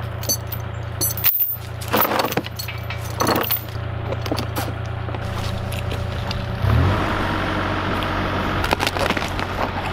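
Steel logging chain clanking and rattling as it is wrapped around a log, over the steady running of a Kubota mini excavator's diesel engine, which revs up about seven seconds in.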